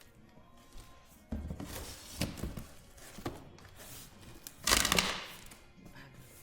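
Handling noises while working on the car's front end: scattered knocks and clatter, with a louder rustling rush about five seconds in.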